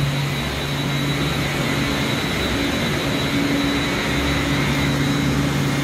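Steady drone of running machinery in a chiller plant room, a low hum with a second, slightly higher hum coming in about three seconds in.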